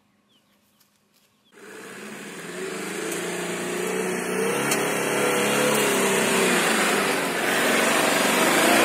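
Toyota Fortuner's 3.0 D-4D diesel engine revving hard under load as the 4x4 climbs a sandy off-road slope, its pitch wavering. It starts suddenly about a second and a half in and keeps growing louder.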